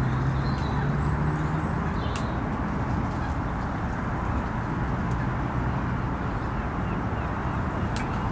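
Steady wind rushing over the microphone, with a few short bird calls in the first couple of seconds and a couple of sharp clicks.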